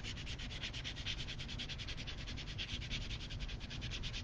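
Blender pen scrubbing back and forth on textured watercolor paper, a steady scratchy rubbing in quick, even strokes, as it blends watercolor-pencil color into the paper.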